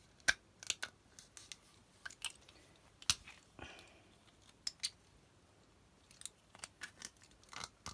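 White plastic tubes and elbow fittings knocking and clicking as they are handled and pushed together: scattered sharp clicks, the loudest about three seconds in, followed by a short scrape.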